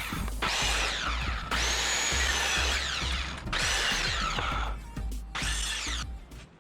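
Circular saw cutting through pallet boards in four short runs. The motor's high whine starts up with each cut and falls away in pitch as the blade spins down between cuts.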